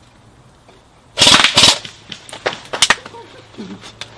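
Airsoft electric rifle (AEG) firing a short burst close to the microphone about a second in, followed by a few scattered clicks and knocks.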